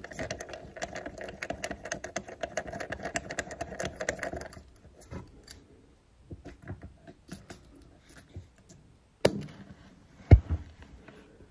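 Rapid metallic clicking and rattling from a loosened brass tap back nut and tap fittings being handled under a basin, then scattered small clicks and two sharp knocks near the end, the second the loudest.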